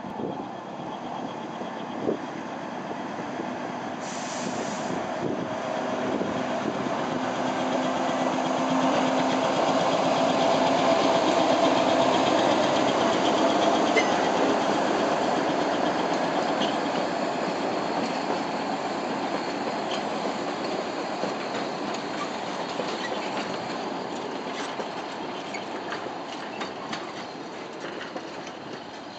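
Narrow-gauge passenger train hauled by a 1940-built diesel-electric locomotive pulls away and passes by. The running noise grows louder to a peak around the middle and then fades as it moves off, with a few sharp clicks in the later part.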